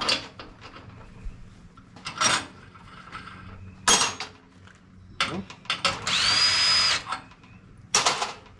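Loose steel parts of a disassembled flex joint knocking and clattering on a workbench, several separate knocks. About six seconds in, a small power tool spins up quickly and runs for about a second.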